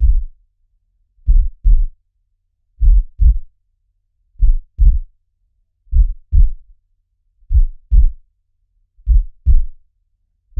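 Slow heartbeat sound effect: a steady lub-dub, each beat a pair of short, low thuds, about one beat every second and a half (roughly 40 beats a minute).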